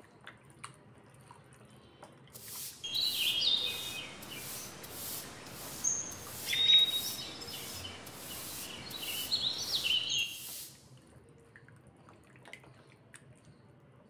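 Short, stepped bird chirps, several times, over a rushing hiss that pulses about twice a second; the hiss starts a couple of seconds in and cuts off near the end.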